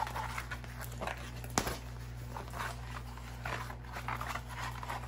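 Faint rustling and handling of a rolled diamond painting canvas and its packaging, with one sharp tap about a second and a half in, over a steady low hum.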